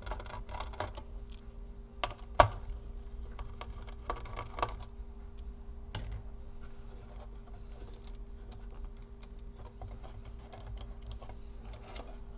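Small irregular clicks and taps of a precision screwdriver and hands working the screws and parts of a laptop's board and chassis, with one sharp knock about two and a half seconds in. A faint steady hum sits underneath.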